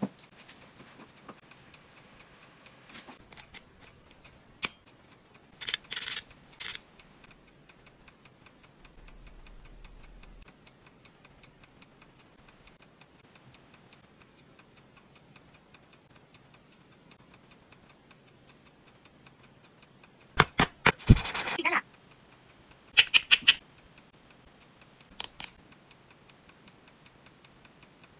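Steady fast ticking, with scattered sharp clicks and short clattering rattles. The loudest cluster comes about two-thirds of the way in.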